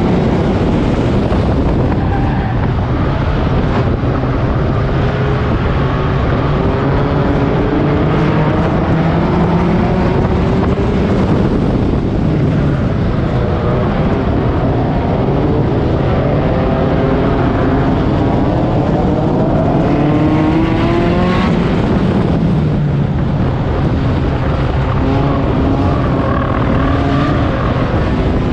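Four-cylinder race car engine heard from onboard under hard running, its pitch climbing under acceleration and dropping off as the driver lifts, over and over, with a big climb about 8 to 12 s in and another about 18 to 21 s in.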